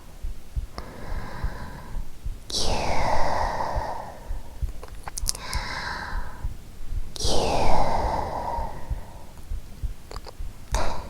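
A woman sighing close to the microphone: two long, breathy exhales, about two and a half and seven seconds in, with a softer breath between them. Underneath runs a low, steady heartbeat.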